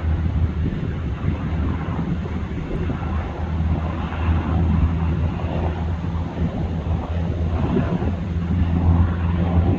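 Black Hawk helicopter flying low overhead, a steady deep engine and rotor drone, with wind buffeting the microphone.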